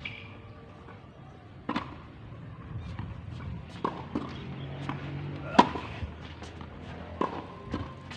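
Tennis balls being struck by rackets and bouncing on the court during a rally: a series of sharp pops at irregular intervals, the loudest a little past halfway.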